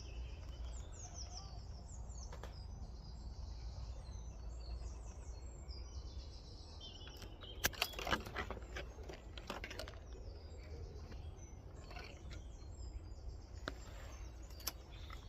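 Small songbirds chirping and singing on and off over a low steady rumble, with a few sharp clicks about eight seconds in.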